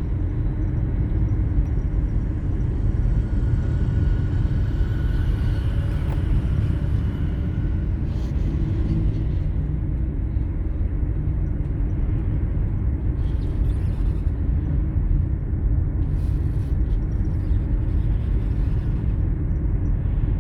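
Steady low rumble of a car driving along a road: engine and road noise.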